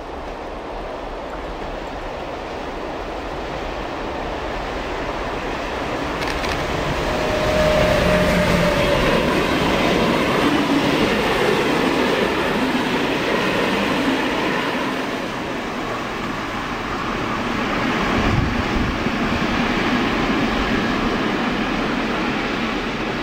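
Freight train passing close by: the noise builds as the locomotive approaches and is loudest as it goes past about eight seconds in, then a long string of open stake wagons keeps rolling by with a steady rumble and clatter over the track.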